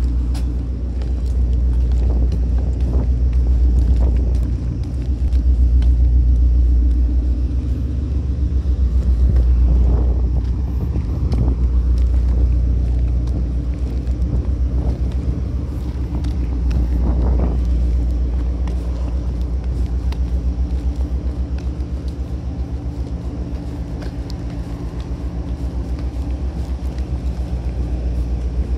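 Steady low machinery rumble with a constant low hum underneath, swelling and easing a little but never stopping.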